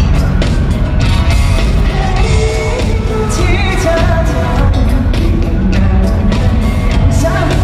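Live pop band playing loudly with a singer's voice over it, heavy bass and a steady drum beat.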